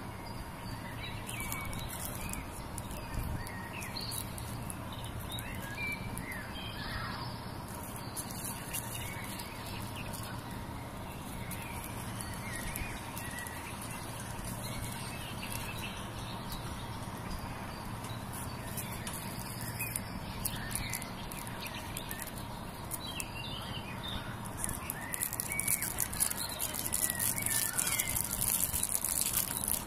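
Small birds chirping intermittently in the background, with thin cellophane wrapping crinkling as the wrapped candles are handled, the crinkling loudest over the last few seconds.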